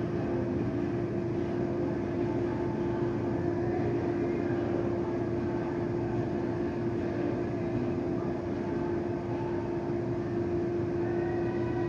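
Steady mechanical hum with one constant pitched tone over an even background rush, unchanging throughout.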